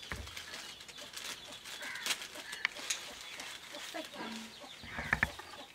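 Chickens clucking now and then, with light clicks and rustles of plastic noodle packets and sachets being handled.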